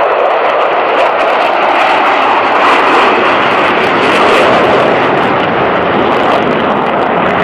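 Loud, steady roar of a formation of four jet aircraft flying past low overhead, swelling slightly in the middle as they pass.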